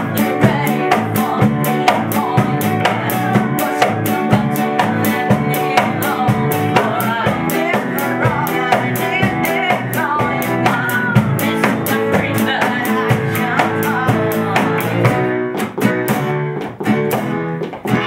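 Live band playing a pop medley: drum kit keeping a steady beat under guitar and a moving melody line, with the cymbals dropping out briefly near the end.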